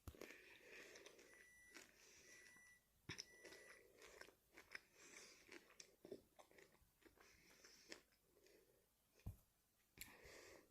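Faint crunching and clicking sounds, irregular and scattered throughout.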